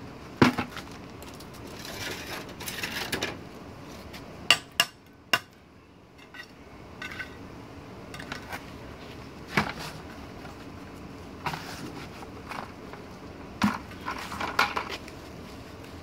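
Hand trowel scraping wet cement and knocking against a plastic bucket and paving tiles: a string of sharp knocks and clinks, the loudest about half a second in, with scraping between.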